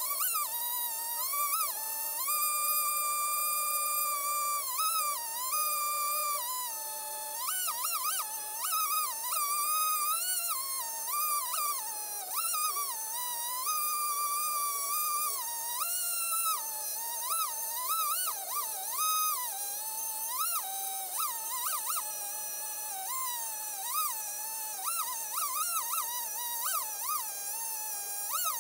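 Background music: a single lead line that slides and holds between notes like a whistle or theremin, with no low bass.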